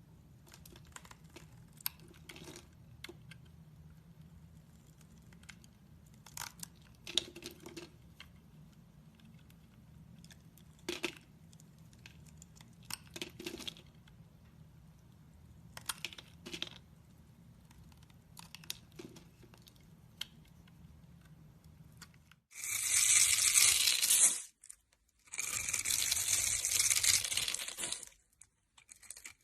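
Knife cutting through dry bar soap: scattered light scrapes and taps at first, then two long, loud crunchy cuts near the end as the blade goes through the soap.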